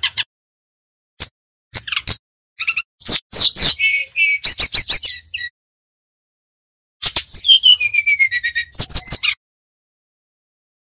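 Brown-chested jungle flycatcher singing its whistling song: scattered short notes, then a rapid run of high whistles about three seconds in, a pause, and a second run of falling whistles about seven seconds in.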